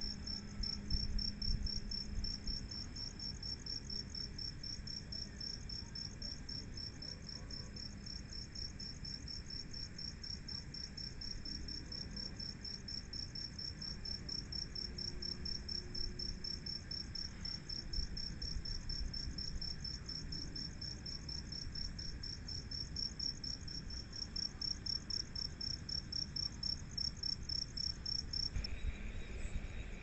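A cricket chirping in a fast, even, high-pitched pulse that keeps on without a break. Near the end the chirping stops and a different, lower sound starts.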